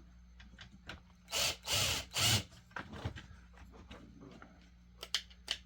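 Hand work on a chainsaw's housing while a small screw is fitted: three short, loud scraping rubs in quick succession, then scattered small clicks and taps of parts and tools being handled.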